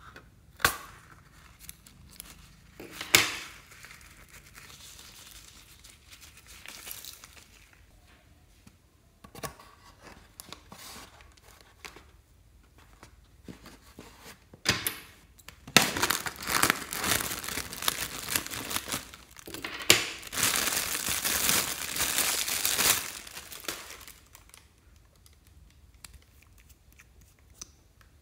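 Mylar foil balloon crinkling and tearing as it is handled and cut. The crinkling is loudest and densest for several seconds in the second half, with a sharp snap about three seconds in and scattered clicks between.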